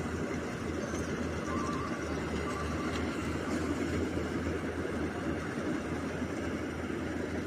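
Rice combine harvester running steadily as it cuts and threshes paddy rice: an even engine drone with a constant low hum.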